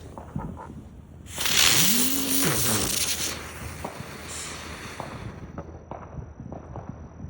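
A firework ignites about a second in with a sudden loud hiss of spraying sparks that lasts about two seconds and then dies away, with a short tone that rises, holds and falls heard during the burst.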